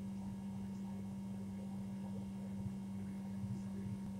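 Steady low electrical hum over faint room noise, with no distinct sound standing out.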